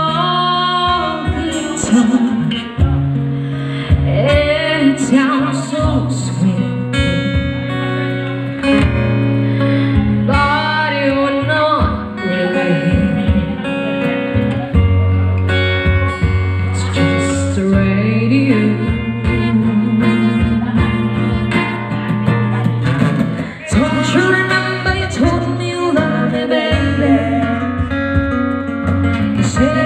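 A woman singing into a microphone, backed by a small acoustic band with guitar and a cajón.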